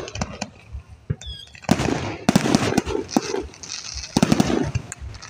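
Aerial firework shells bursting overhead: a few sharp bangs, then two dense runs of rapid crackling reports, one about two seconds in and another about four seconds in.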